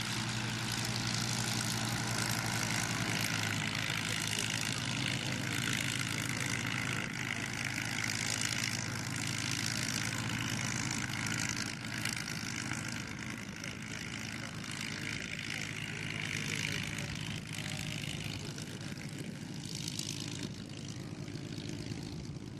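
Supermarine Spitfire's V12 piston engine running at low power as the fighter taxis, a steady propeller drone that grows a little quieter in the second half.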